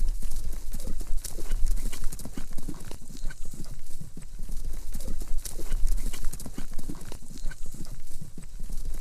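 Horse's hooves beating on the ground in a quick, uneven run of thuds, over a steady low rumble.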